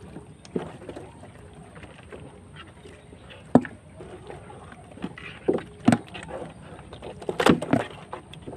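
Irregular splashes and sharp knocks, a few scattered hits and then a quick cluster of them near the end.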